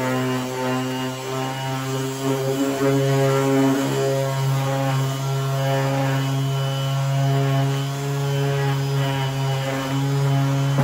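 Electric orbital sander running steadily with a low hum, its pitch shifting a little now and then as it is pressed on and worked across a plastic headlight lens.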